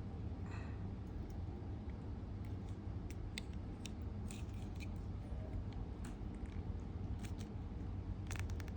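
Leatherman Surge multi-tool's wire stripper working on an electric wire: scattered faint clicks and snips of the metal jaws, a few more near the end, over a steady low hum.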